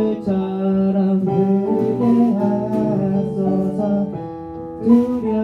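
A worship band playing a slow song: acoustic guitar with keyboard holding sustained chords.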